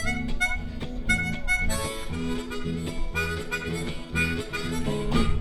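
Live blues band playing, harmonica wailing short held notes over electric guitar, bass and drums, with a sharp closing hit near the end.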